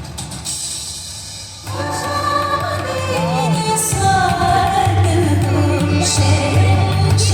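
Background music with singing, swelling louder a little under two seconds in over a steady bass.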